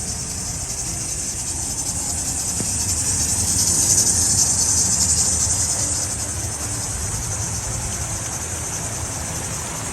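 Steady rushing hiss of a flooded creek running high, swelling a few seconds in and easing again, over a low rumble.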